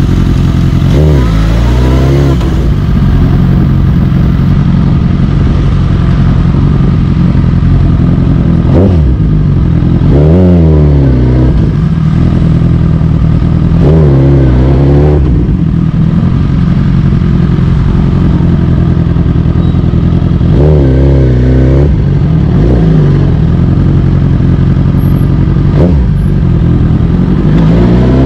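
Suzuki GSX-R1000 K8's inline-four engine running at low revs in slow riding. Its revs rise and fall briefly about eight times, and climb steadily near the end.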